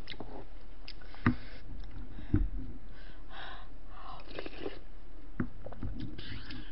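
Close-miked eating of beef short-rib soup: chewing and slurping from a spoon, with a few short knocks of the spoon against the bowl.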